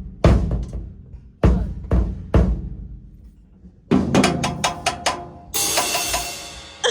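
A drum kit being played: a few separate strikes on the drums, then a quick fill of rapid hits about four seconds in, ending in a long cymbal crash near the end.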